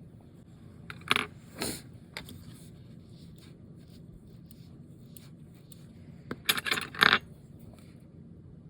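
Light metallic clicks and clinks of small watchmaking tools or watch parts being handled and set down on a workbench: two clinks about a second in and a quick cluster of three or four about six and a half seconds in, over a steady low hum.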